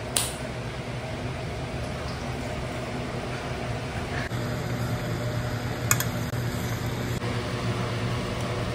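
A steady machine hum, like a fan or kitchen appliance running, with a sharp click just after the start and another about six seconds in.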